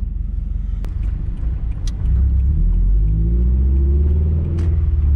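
Subaru BRZ flat-four boxer engine with catless headers and a cat-back exhaust, heard from inside the cabin, running on a freshly flashed stage 2+ tune. It rumbles low, then gets louder and climbs in pitch under acceleration from about two seconds in, dips briefly near the end and climbs again.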